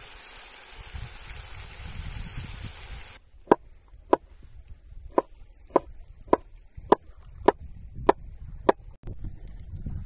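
Sliced mushrooms sizzling in oil in a metal pan for about three seconds. Then a knife chops through a green pepper on a wooden board: nine even cuts, a little over half a second apart.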